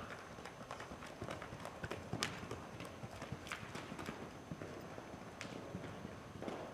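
Hoofbeats of a ridden Welsh pony moving over soft dirt-and-sand arena footing: a run of short, uneven thuds and clicks.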